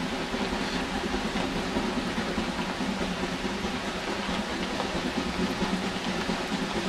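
Steady rumble of a Shay-hauled train rolling along the rails, heard from aboard a passenger car.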